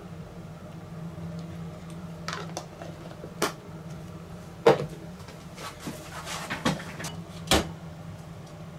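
A few light knocks and clicks of kitchenware being handled, spaced irregularly, the loudest about halfway through, over a steady low hum.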